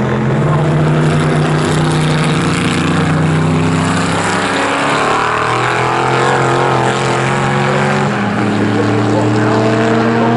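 Chevrolet Corvette Sting Ray race car's V8 engine running under load through a corner, holding a steady note. About eight seconds in the note steps and then climbs slowly as the car accelerates away.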